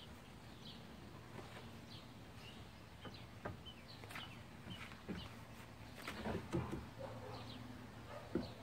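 A few light knocks and scrapes of a used wooden deck board being handled and set against the wooden porch edge, the loudest a little past the middle. Faint bird chirps in the background.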